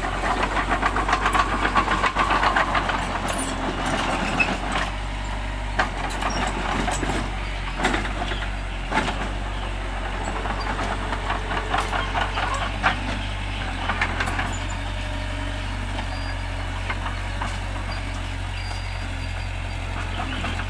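Bulldozer's diesel engine running steadily, with a dense metallic rattle over the first few seconds and scattered sharp clanks after that.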